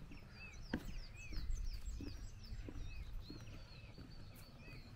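Small birds chirping: many short, arched high notes repeated quickly one after another, over a low wind rumble on the microphone, with a few soft knocks.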